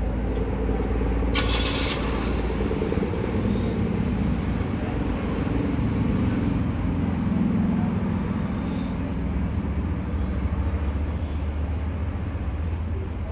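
Steady low rumble of a motor vehicle engine running nearby, its pitch shifting a little midway, with a short hiss about a second and a half in.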